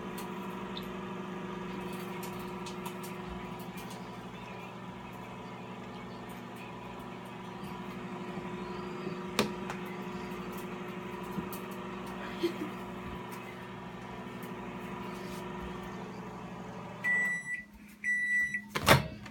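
Microwave oven running with a steady hum that stops about 17 seconds in, followed by two beeps marking the end of the heating cycle and then a single sharp click.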